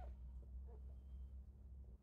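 Near silence: a steady low hum, with a faint thin high squeak about a second in.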